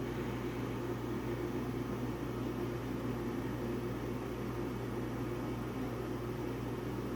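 Home furnace running steadily just after being switched on: a constant low motor hum with the even rush of air from the blower.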